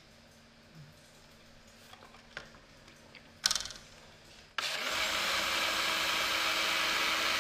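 A few faint ticks, then a sharp knock about three and a half seconds in, and about a second later a countertop blender switches on and runs steadily, churning green liquid and chunks into a smoothie.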